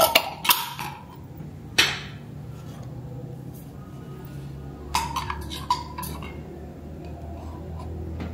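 Metal screw lid being twisted off a large glass jar and handled, with sharp clinks and knocks of metal on glass at the start and about two seconds in. Another short cluster of clinks comes about five seconds in.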